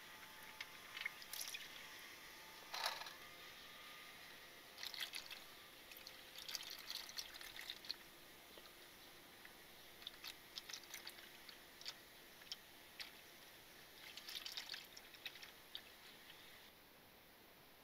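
Transmission fluid draining from the drain-plug hole into a drain pan during a fluid change: a faint pour and splatter with scattered small clicks.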